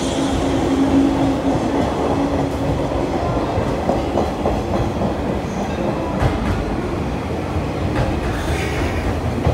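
JNR 185 series electric train departing and running past along the platform, a steady rumble of wheels on rail. A few sharp clicks come later as the cars cross rail joints.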